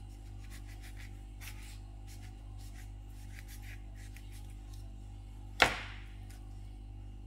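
A knife cutting around an avocado by hand: faint scraping and rubbing of the blade through the skin, then one sharp knock a little over five seconds in, over a steady low hum.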